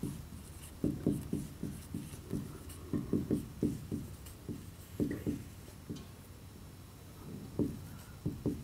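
Marker pen writing on a whiteboard: short, faint scratching strokes in irregular clusters, with pauses between words.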